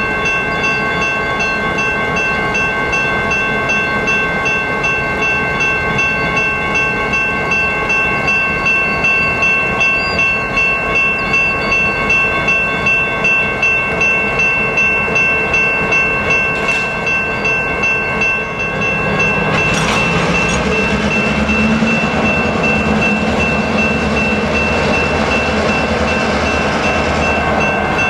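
Railroad crossing bell ringing steadily while a freight train rolls through the crossing, its wheels clicking over rail joints about twice a second. About two-thirds of the way in, the BNSF diesel locomotives' engines get louder as they come up to the crossing.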